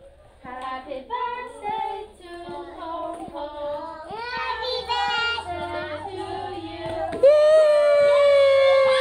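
Young children and women singing a circle-game song together while walking round holding hands. Near the end the singing goes into one long, loud held note.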